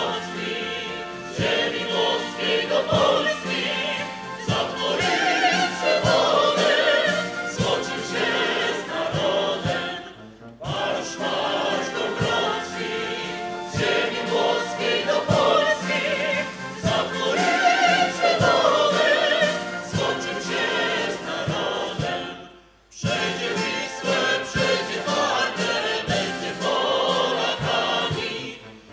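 Music with a choir singing, breaking off briefly twice, about ten seconds in and again after about twenty-three seconds.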